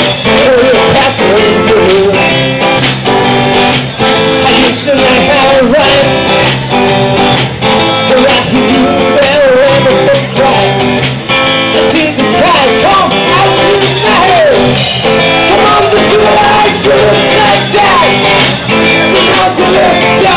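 Live band music: strummed guitar keeping a steady beat, with a voice singing over it.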